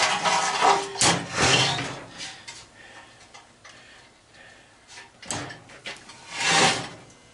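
Metal parts of an aluminum light fixture being handled and worked on: a cluster of knocks and clinks, a sharp click about five seconds in and a longer scrape near the end.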